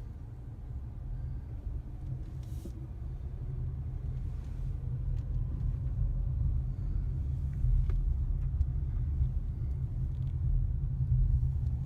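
Car driving slowly: a low, steady rumble of engine and tyres that grows gradually louder.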